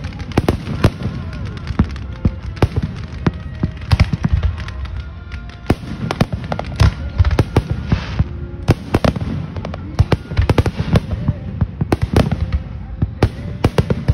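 Fireworks display going off in a rapid barrage: sharp bangs of bursting shells, several a second, over a continuous low rumble.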